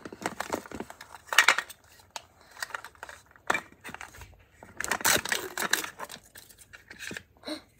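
Thin plastic packaging being torn open and crinkled by hand, in a string of irregular crackles and rips.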